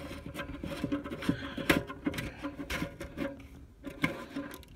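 Irregular clicks, knocks and rubbing as hands work an exhaust-fan motor's mounting stud and its hardened rubber isolator out of the sheet-metal fan base, over a steady low hum.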